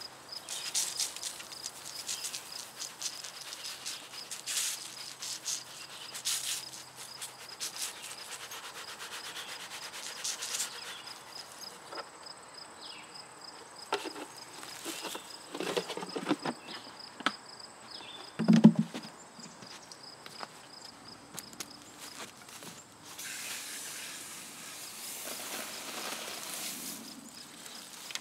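Insects, crickets among them, chirping steadily throughout, over irregular rustling and scraping as material is worked into a worm bed by hand. A single heavy thump comes about two-thirds of the way through, and a steady hiss near the end.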